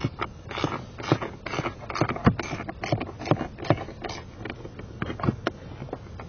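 Irregular clicks and knocks, a few a second, of parts and tools being handled.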